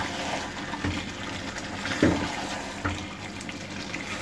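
Wooden spoon stirring a wet mince-and-potato curry in an aluminium pot, a steady wet bubbling sound with a few dull knocks of the spoon against the pot.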